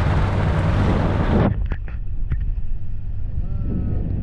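Boat engine running with a steady low drone, under heavy wind noise on the microphone that stops suddenly about a second and a half in.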